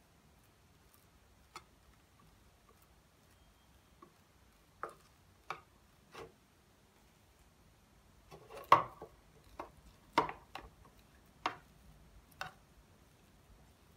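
A wooden spoon tapping and scraping against a clear plastic container while a soft cream cheese mixture is spread inside it: scattered light clicks and knocks, more frequent in the second half, the loudest a little past the middle.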